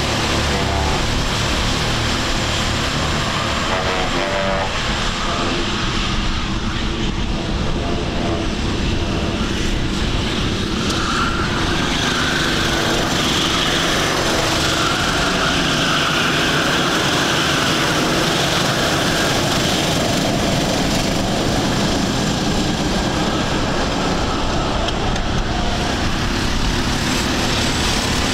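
Several Sodi rental go-karts' four-stroke engines running at racing speed as a pack passes, their engine notes rising and falling with throttle through the corners.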